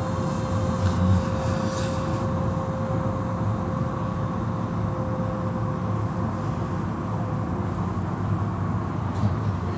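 Automatic car wash tunnel running: steady machine noise of the spinning brushes, water spray and pumps, heard through the viewing window's glass, with a steady hum throughout.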